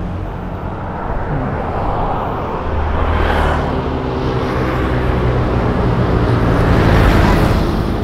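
Road traffic passing close by: vehicle engines running with tyre noise, swelling as vehicles go past about three seconds in and again near seven seconds.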